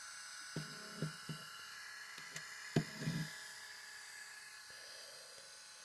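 3D printing pen's small feed motor whirring faintly and steadily while no filament comes out. A few soft knocks come about a second in and again around three seconds.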